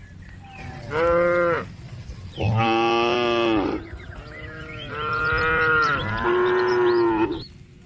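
Cows mooing: about four long, drawn-out moos in quick succession, each held steady for up to about a second and a half.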